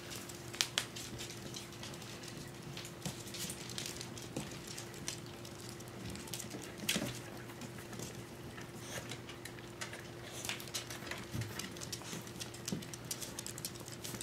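Puppy claws ticking and pattering on a hard wooden floor as the small puppies scamper and tumble, an irregular run of light clicks with a few sharper knocks, over a steady low hum.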